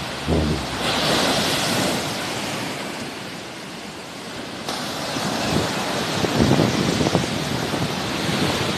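Sea waves washing onto the shore as a steady hiss, with one wash swelling about a second in and easing off. Low gusts of wind rumble on the microphone in the second half.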